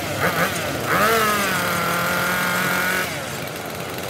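Oshima 2P earth auger's two-stroke engine being revved: three quick throttle blips, then a rev rising about a second in and held high for about two seconds before it drops back to a lower run.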